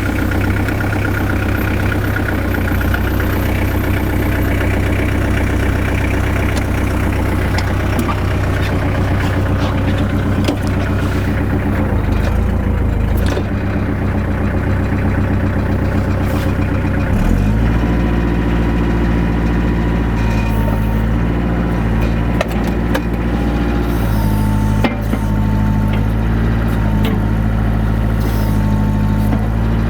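Kubota L45's 45-horsepower diesel engine running just after start-up, idling at first and then picking up to higher revs about 17 seconds in. After the rev-up a higher whine comes and goes several times over the engine note.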